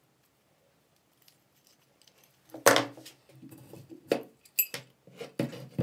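Metal parts of a rusty hand breast drill clinking and knocking against a wooden workbench as they are handled and set down: one loud knock about halfway through, then several lighter clinks.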